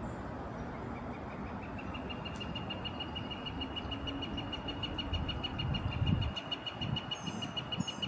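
Northern flicker giving its long call: a rapid, even series of 'wick' notes that starts about a second in, rises slightly at first, then holds one pitch. Low wind rumble on the microphone underneath.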